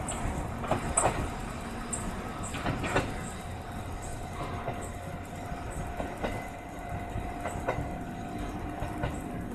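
A Choshi Electric Railway electric train running away along the track, its wheels clacking over the rail joints about once a second, the clacks growing fainter as it recedes.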